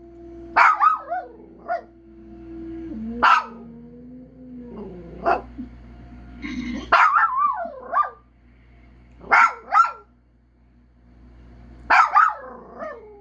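A dog barking in sharp single barks every couple of seconds, mixed with wavering, falling howls. A long held note drops in pitch about three seconds in.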